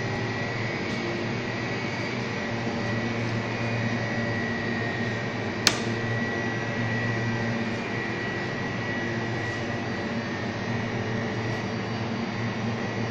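Steady hum and fan noise of a running walk-in cooling chamber's refrigeration unit, with a faint steady high whine. A single sharp click a little under halfway through.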